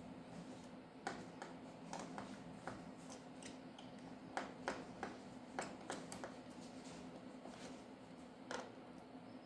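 Faint, irregular small clicks and ticks of repair tools and small parts being handled on an opened smartphone, about a dozen over a low steady hum.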